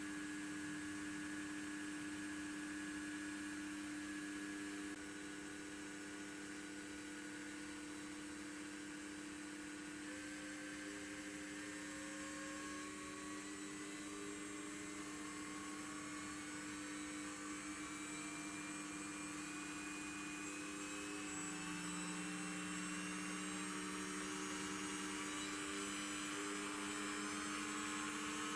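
High-speed spindle spinning a shaft, giving a steady electric hum and whine. Several fainter tones climb slowly in pitch through the second half, so the speed is changing.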